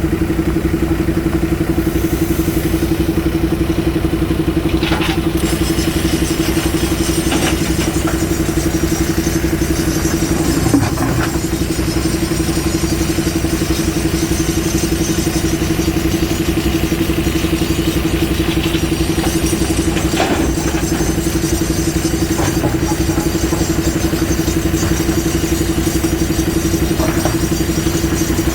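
JCB 3DX Super backhoe loader's diesel engine running steadily while it works gravel, with a few faint knocks and one sharper knock about eleven seconds in.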